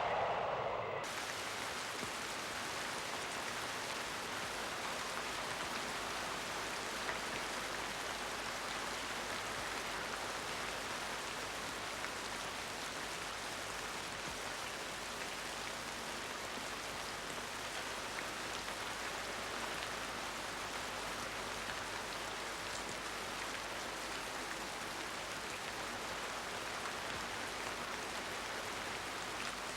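Heavy storm rain falling steadily, an even, dense hiss. A louder, lower rushing sound fades out in the first second.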